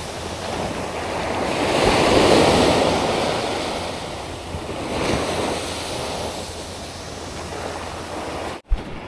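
Sea surf washing against a rocky shore, swelling and easing every few seconds, with wind buffeting the microphone. Near the end the sound cuts out for an instant with a click.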